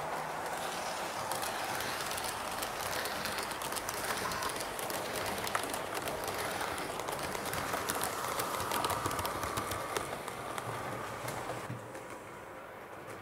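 Model push-pull train of silver coaches with a control cab car rolling along a model railway's track: a steady whir and rumble with quick clicking of wheels over rail joints and points. It fades about twelve seconds in as the train moves away.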